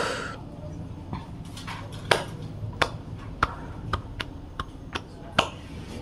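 A short rustle, then a run of about ten sharp, irregularly spaced clicks and taps over a steady low hum.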